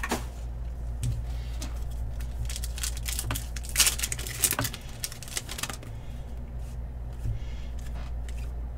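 A foil wrapper of an Upper Deck Spider-Man Metal Universe hobby pack crinkling and tearing open, the loudest crackles about four seconds in. After that come fainter sounds of the cards sliding against each other as they are fanned through, over a steady low hum.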